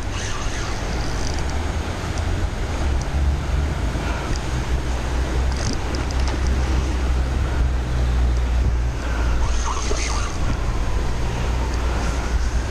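Wind buffeting the action camera's microphone over the steady rush of a river running high. A faint wavering whine rises and falls over the last few seconds.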